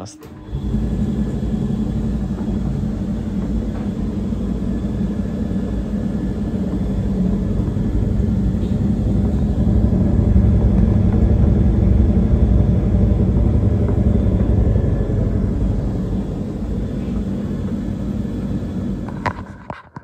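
Hoover tumble dryer running on a test run after a new drive belt and tensioner roller were fitted: the motor turns the drum with a steady low rumble and hum. The sound cuts off near the end.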